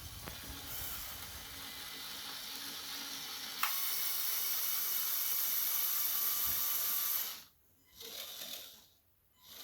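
Electric motors and plastic gear trains of a Lego Technic Liebherr R 9800 excavator model running, a steady mechanical whir with gear rattle. It gets louder with a click about three and a half seconds in, and cuts off suddenly about seven seconds in, followed by a short brief run.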